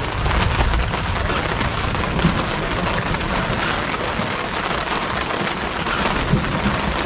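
Steady rain falling, with a low rumble near the start.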